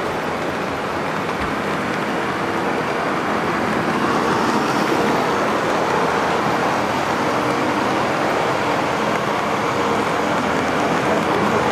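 O-scale model train running along the track: a steady rumble and hiss of metal wheels on the rails and the drive motor, picked up close by a camera riding on the train. It gets a little louder about four seconds in.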